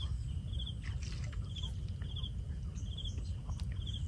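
A small animal's short, high, pulsed chirp, repeating regularly a little more than once a second, over a steady low rumble.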